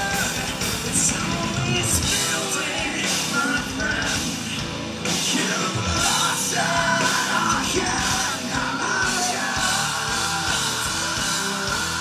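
Live rock band playing a song with electric guitars and a drum kit, the lead singer's voice carried over the band.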